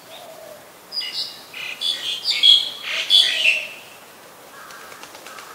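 Black-collared starling calling: a rapid string of varied notes, loud and about three seconds long, starting about a second in.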